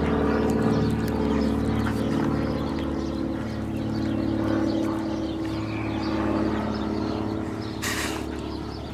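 A steady motor drone that slowly fades, under small clicks from a dog chewing at a goat head held in a plastic bag. A short rustling burst comes about eight seconds in.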